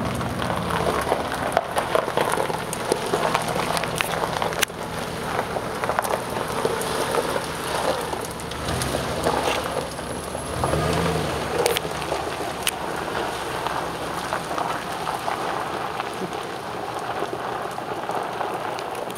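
Dodge Ram 1500 V8 pickup's mud-caked tyres churning through soft wet mud and gravel, with a steady crackling spatter of mud and stones and a few sharp clicks. The engine revs up and back down briefly about nine seconds in and again about eleven seconds in.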